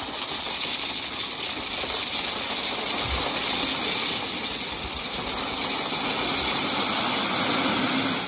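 Gravel sliding and pouring out of a tipped wheelbarrow onto a gravel bed: a steady rushing rattle of stones that runs on evenly.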